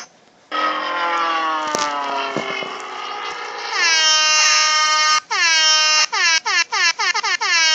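Soundboard meme sound effect. A long horn-like tone sags slowly in pitch, then breaks into a stuttering run of air-horn blasts that come faster and faster.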